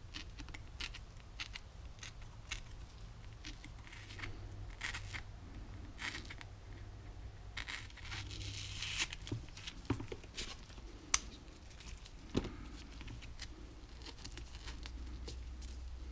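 A small tool scraping and cutting into cured Foam-iT 5 expanding foam: soft irregular scrapes and crackles, busiest about halfway through, with a few sharper clicks a little later.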